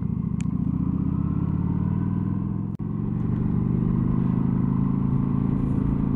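Motorcycle engine running at a steady pitch while being ridden, heard from the rider's position. The sound drops out for an instant about three seconds in, then the engine carries on at much the same pitch.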